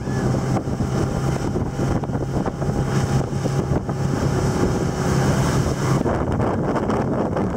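Motorboat engine running steadily at speed while towing a tube, under wind buffeting the microphone and the rush of the wake; the engine's drone and the wind ease a little about six seconds in.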